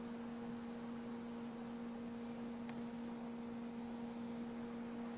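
A steady electrical hum: two held low tones over a faint hiss.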